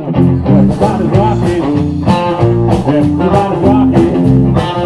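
Rock and roll song with guitar and a steady beat.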